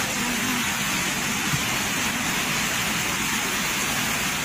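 Steady rushing noise of a muddy flash-flood torrent carrying debris, mixed with heavy rain.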